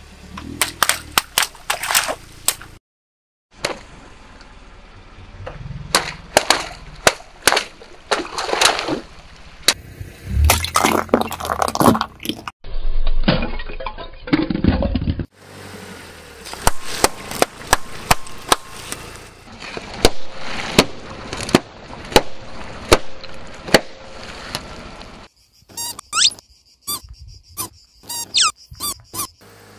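A string of objects crushed under a car tyre: sharp pops, cracks and crunching as balloons burst and brittle things break, in several separate bursts. Near the end, rubber ducks give short squeaks several times as the tyre presses them flat.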